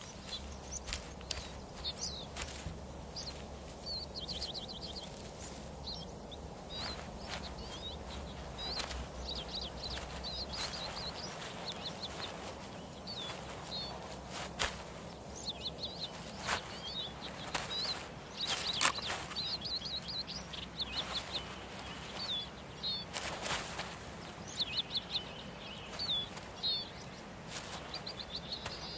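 Small birds chirping and giving short, quick trills again and again over a soft outdoor background, with scattered sharp clicks and knocks throughout.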